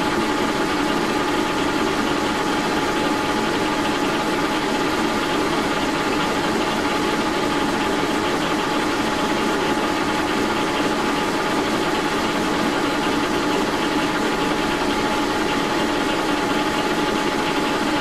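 Brown & Sharpe No. 2 horizontal milling machine running at about 700 RPM, its Criterion boring head spinning a carbide boring bar in a bore in a hard cast crank handle. It makes a steady machine drone with a thin steady whine, unchanging throughout.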